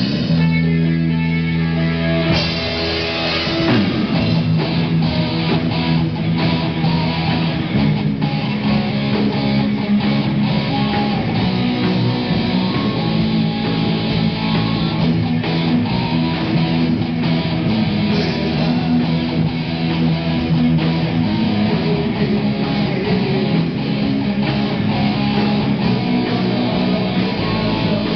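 Live amplified rock band playing an instrumental passage: electric guitars, bass guitar and drum kit, in a heavy rock style. About three seconds in, a note slides steeply downward.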